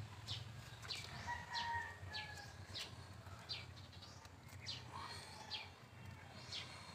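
Small birds chirping in the background: repeated short, high chirps that fall in pitch, about one or two a second, over a low steady hum.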